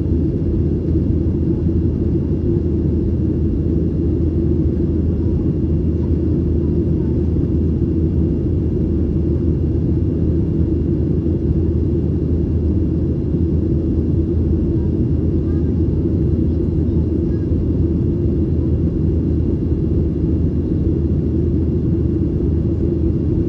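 Steady cabin rumble of a Boeing 737-900ER in flight, from its CFM56 engines and the air rushing past the fuselage: a deep, even drone with a faint steady high tone above it.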